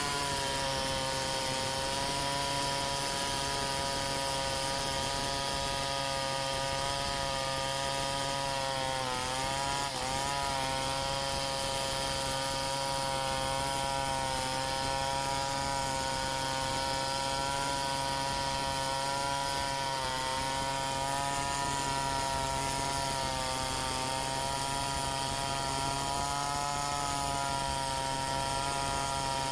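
Two-stroke chainsaw running at full throttle, ripping lengthwise along a log in a freehand milling cut. The engine note holds steady, dipping briefly in pitch about a third of the way in and again about two-thirds in.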